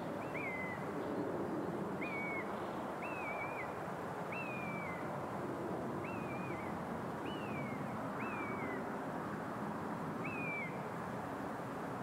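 An animal calling eight times at uneven intervals, each call a short high note that jumps up and then falls away with a wavering tail. A steady rushing noise runs underneath.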